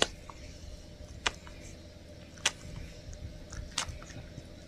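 Close, sharp wet mouth smacks from kissing and licking between a woman and her border terrier: four loud ones about a second and a quarter apart, with fainter ticks between them, over a low steady hum.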